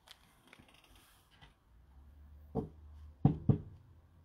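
A few faint ticks of handling noise, then three dull knocks in the second half, the last two close together and the loudest.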